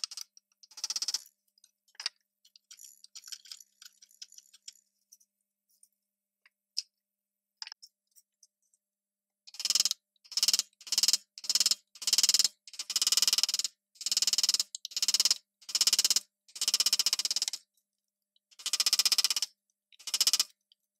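Wood chisel cutting into a pine board to clear a slot. After a mostly quiet start with a few faint clinks, there are about a dozen short bursts of rapid crackle, each under a second long.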